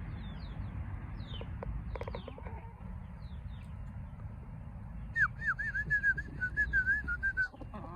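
Young chicks peeping, many short falling cheeps repeated again and again. In the second half a quick run of whistled notes, each rising and falling, goes on for about two seconds.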